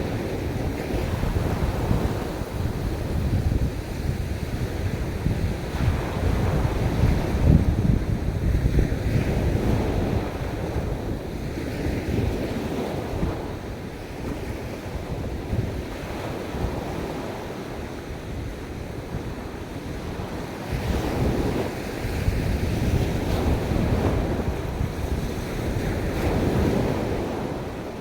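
Ocean waves washing onto a beach, the surf swelling and easing in slow surges, with wind rumbling on the microphone.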